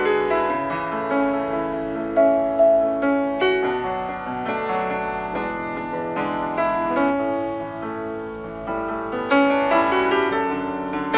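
Background piano music: a slow, gentle piece with sustained chords and melody notes.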